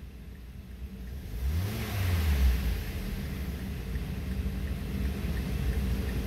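2012 Mazda 6's 2.5 L four-cylinder engine idling at about 1,000 rpm with the coolant gauge still low, a cold idle. It swells louder briefly about a second and a half in, then settles back to a steady idle.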